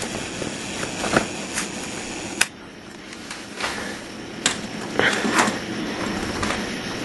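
Small plastic Lego Stone Chopper vehicle moved by hand across hardwood floorboards, rattling, with several sharp plastic clicks and clacks over a steady background hiss.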